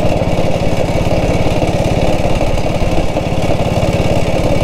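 1947 BSA B31's single-cylinder four-stroke engine running steadily with an even firing beat.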